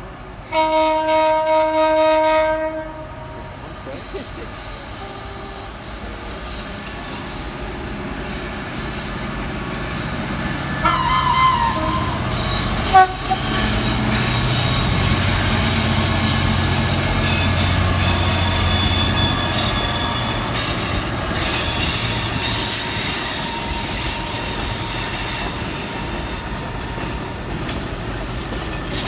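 Class 66 diesel locomotive, its EMD two-stroke V12 running, hauling a track maintenance train past. A horn sounds for about two seconds near the start, then the engine's rumble builds and passes about halfway through, followed by the wagons' wheels squealing and clicking over the rails.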